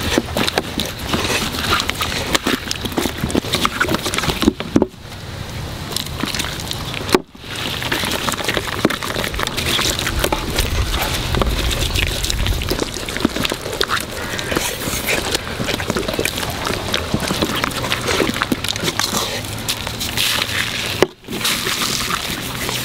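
Hands rubbing and kneading a wet spice paste into the skin of a whole raw duck: a busy run of wet squelches, smacks and rustles. The sound briefly cuts out about 7 s in and again near the end.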